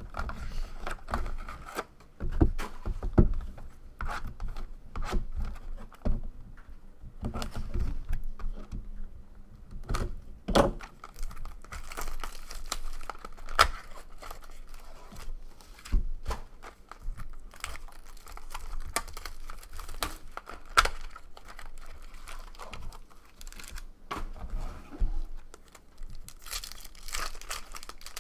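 Trading card box and packs being opened by hand: wrappers tearing and crinkling, with irregular clicks and knocks of handling.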